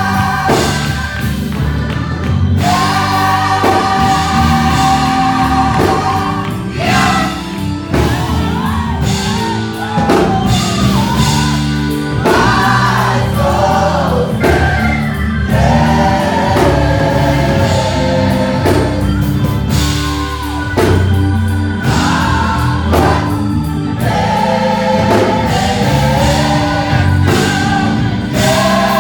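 Gospel choir singing with band accompaniment: held choral chords alternate with a solo voice sliding between notes, over bass and drums.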